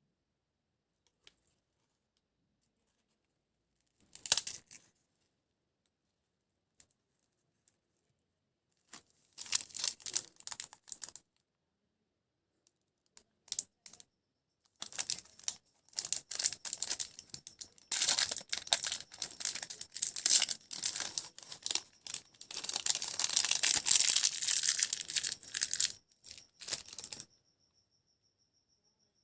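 Plastic snack wrapper being crinkled and torn open, in short scattered bursts at first and then in dense continuous crackling for about twelve seconds. A thin steady high-pitched tone starts near the end as the crinkling stops.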